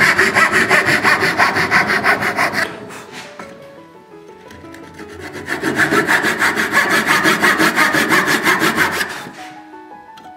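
Brass-backed dovetail saw cutting down the socket lines of a lapped dovetail in a wooden drawer front clamped in a vise: quick back-and-forth strokes in two runs, the first stopping a little under three seconds in, the second starting about five seconds in and stopping near the end.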